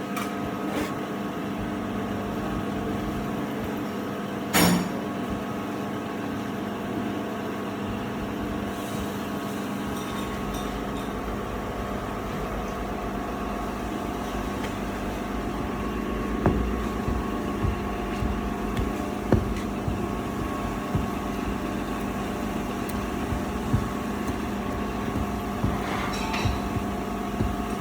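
Workshop machinery running with a steady hum. There is a sharp knock about four and a half seconds in, and a lower rumble with scattered knocks from about ten seconds on.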